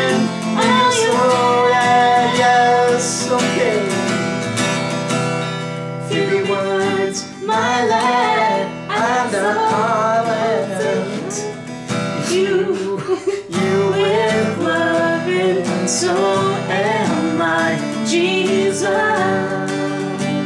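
Steel-string acoustic guitar strummed, with a man and a woman singing a slow worship song together over it.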